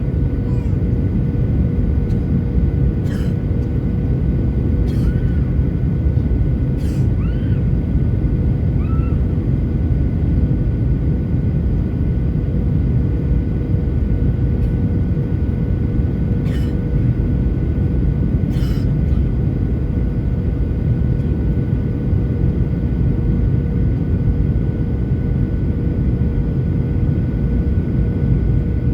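Steady cabin roar of an airliner descending to land: engine and airflow noise heavy in the low end, with a constant hum at two fixed pitches over it. A few faint, short squeaks sound over the roar in the first twenty seconds.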